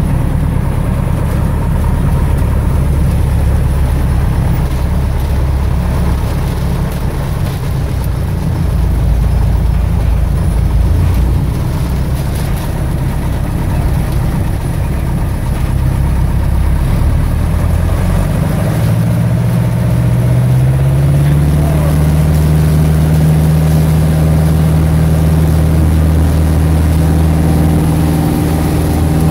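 Light aircraft's piston engine and propeller, heard from inside the cockpit, running at low power, then opening up in steps about two-thirds of the way through to a steady, higher-pitched note as the plane starts its takeoff roll.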